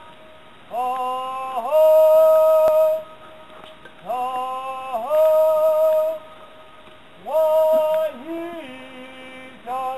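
Ceremonial chant: long, drawn-out sung calls, three of them, each swooping up into a held note and dipping away at the end, followed by a lower held note near the end.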